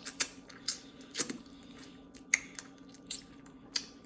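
Close-up eating sounds of crab meat in butter sauce: wet chewing and lip smacks, heard as a handful of short, separate smacks and clicks spread across a few seconds.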